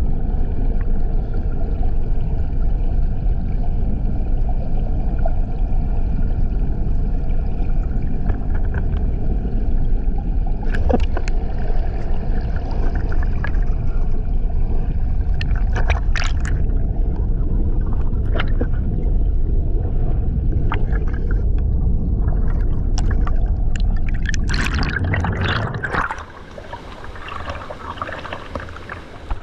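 Waterfall water pouring and churning: a loud, steady, deep rumble with scattered splashes. Near the end the rumble drops off sharply, leaving quieter gurgling and splashing.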